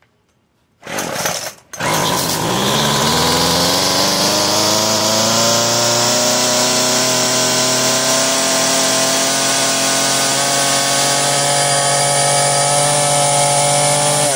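Craftsman Weedwacker 25cc two-stroke trimmer engine pull-started about a second in. It catches at once, revs up and runs at a steady high speed on its newly fitted carburetor.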